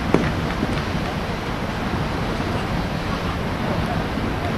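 Wind buffeting the microphone, a steady rumbling noise, with one sharp knock right at the start.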